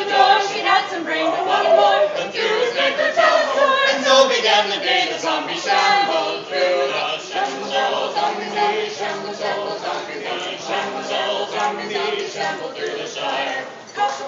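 A mixed group of men's and women's voices singing a folk song together in harmony, a cappella.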